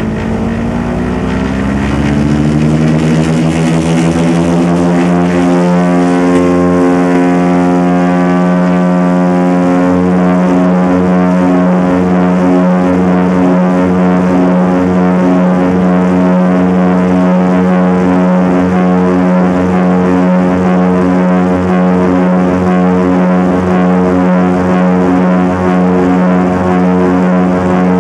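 Twin-engine light aircraft's piston engines and propellers heard from inside the cockpit, rising in pitch and loudness over the first few seconds as power comes up for the takeoff run, then a steady loud drone.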